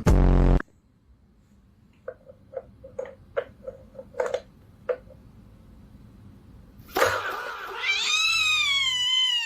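Domestic cat yowling: a long, drawn-out wavering howl that starts about seven seconds in. Before it comes a run of about a dozen short chirps, roughly three a second. The loudest sound is a brief, harsh buzz right at the start.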